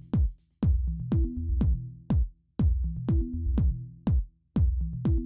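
Electronic dance music: a drum-machine kick that drops in pitch, about two beats a second, over a looping bass line and a short repeating synth figure.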